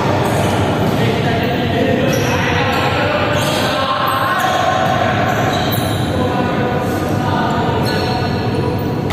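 Echoing sports-hall din during a volleyball game: players' voices and a volleyball bouncing on the wooden court.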